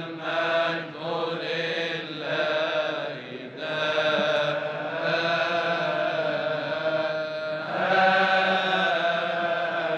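Coptic Orthodox liturgical chant: voices sing long phrases of held, wavering notes, broken by short pauses between phrases.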